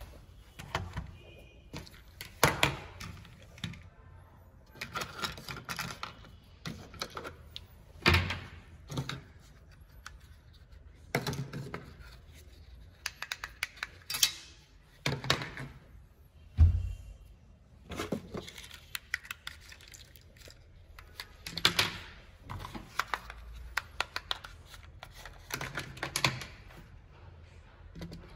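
Irregular clicks, taps and short scrapes of small parts being handled and worked on, with one heavier thump a little past halfway.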